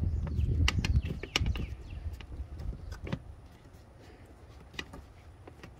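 Hard plastic clicks and knocks of an engine air filter housing and its sensor connector being worked into place, about half a dozen scattered sharp clicks, with a low rumble in the first two seconds.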